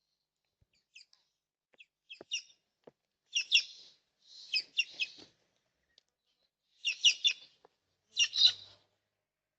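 Birds calling at a backyard feeder: short, harsh chirps and screeches in bursts, the loudest coming in four clusters across the second half.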